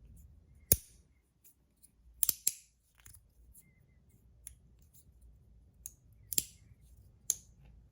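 Magnetic fidget slider being worked by hand: a handful of sharp, irregularly spaced clicks as its plates snap into place under strong magnets, including a quick pair about two seconds in, with faint sliding ticks between.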